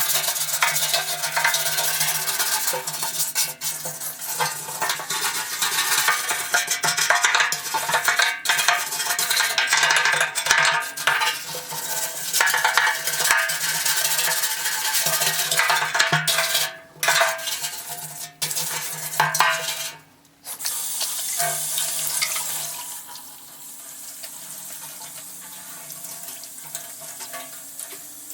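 Motorcycle fuel tank being scrubbed in hot soapy water: rough, scratchy scrubbing strokes with splashing water, broken by a few short pauses and quieter in the last few seconds.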